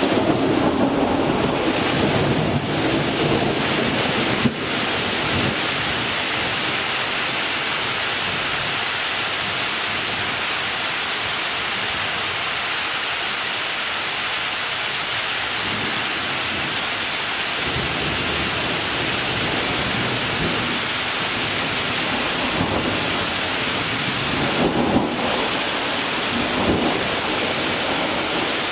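Steady rain falling in a thunderstorm, an even hiss throughout. A low rumble of thunder fades out about four seconds in, and another rumble rolls in near the end.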